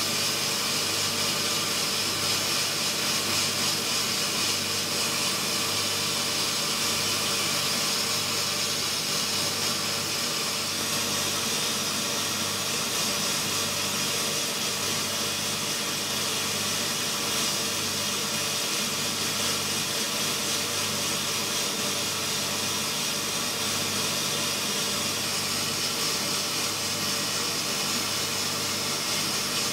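Sandblaster nozzle firing purpose-made blasting grit against York stone: a steady hiss of air and grit with a steady hum underneath, deep-cutting the stone through a stencil.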